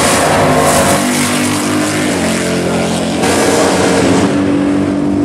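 Drag cars' engines running loudly at the strip, revving, with the engine pitch shifting in steps a couple of times.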